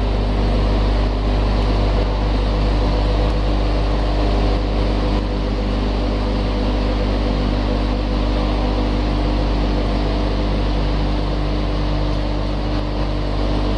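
Powder feed production line machinery running steadily: a loud, even mechanical noise over a constant deep electric-motor hum with several steady tones.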